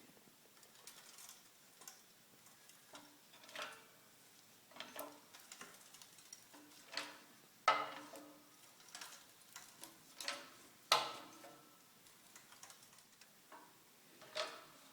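Shop press working under load on a seized hub and knuckle through a steel plate: irregular clicks and short metallic creaks about once a second, with two sharper cracks a little past halfway and about two-thirds through. The steel plate is bending under the force.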